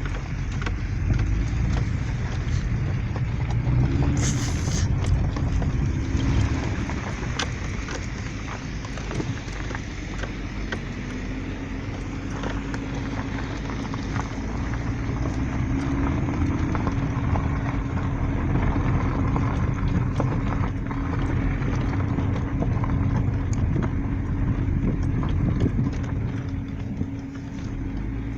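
Car driving on a rough mountain road, heard from inside the cabin: steady road and engine rumble with frequent small rattles and knocks. A steady engine hum comes in about a third of the way through.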